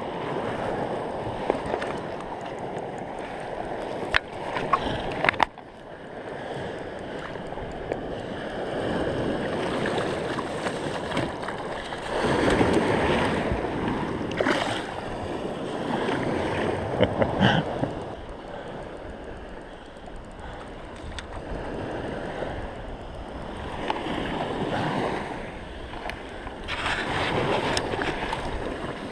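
Shallow Baltic Sea water lapping and sloshing around a wading angler, swelling and ebbing every few seconds, with a few short sharp clicks.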